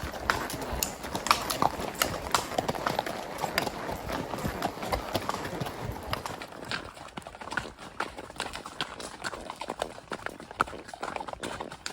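Hoofbeats of a spotted saddle horse gelding, a quick run of irregular hoof strikes that grows fainter after about halfway.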